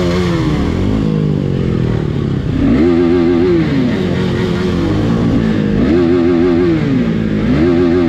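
Motorcycle engine under way, its pitch rising, holding and falling again every two to three seconds as the throttle opens and closes, over a steady low rumble.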